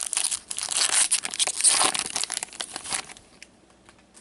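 A 2015-16 SP Authentic hockey card pack's wrapper being torn open and crinkled by gloved hands. The crackling stops about three seconds in, once the cards are out.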